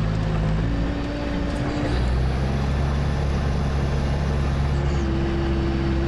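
All-terrain vehicle engine running steadily as the vehicle crawls along at walking pace, heard from inside the cab, with the engine note shifting about two seconds in.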